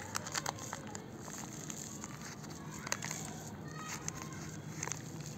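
Thin black plastic grow bag crinkling and crackling as it is peeled away from a plant's root ball, with scattered small clicks.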